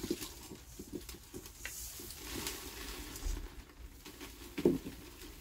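Perlite granules rattling and sliding in a perforated metal colander as it is shaken and tipped out, with a louder knock near the end.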